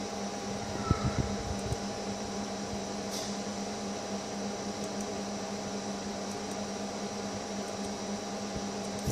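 Steady machine hum with a low steady tone, like a computer's cooling fan running, with a few soft knocks about a second in.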